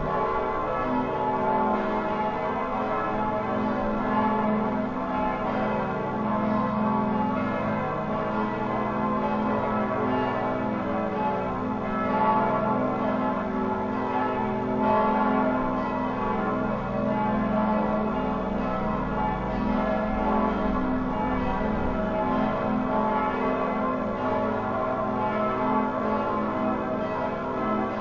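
Several church bells ringing together in a continuous peal, their tones overlapping without a break.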